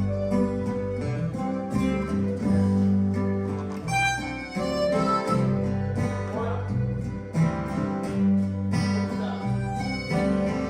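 Background music: a guitar-led passage with held bass notes and no singing.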